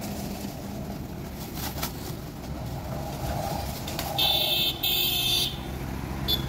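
Road traffic running steadily, with a vehicle horn sounding loudly for about a second and a half a little past the middle.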